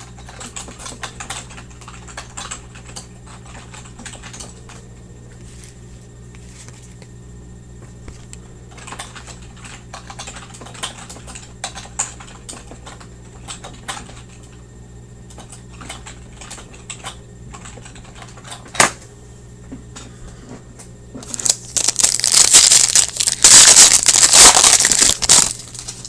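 Typing on a computer keyboard in short runs of key clicks, with a sharp single click about 19 s in. Near the end comes a few seconds of loud crinkling, the foil wrapper of a card pack being torn open.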